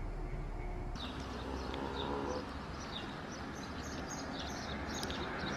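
Many small birds chirping in quick, short high notes, starting about a second in, over steady background noise.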